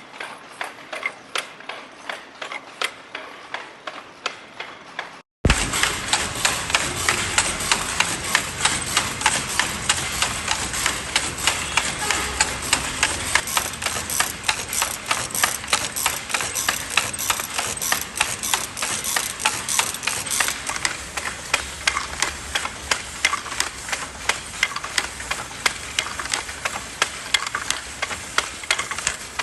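Wooden textile machinery clattering in a steady rhythm of sharp clicks, as a loom or knitting machine works thread. After a brief break about five seconds in, the clatter is louder and faster.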